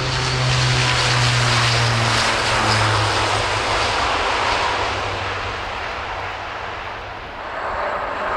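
Airbus A400M's four TP400 turboprop engines running at takeoff power, a loud propeller roar over a low steady drone. The drone drops in pitch about three seconds in as the aircraft passes. The roar eases off and then swells again near the end.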